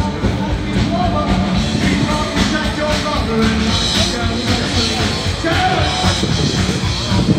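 Live band playing a song, with a singer over the band.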